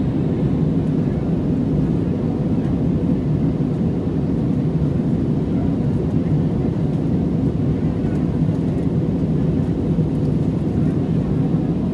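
Steady low cabin noise of a jet airliner in flight, the engines and rushing air heard from inside the cabin.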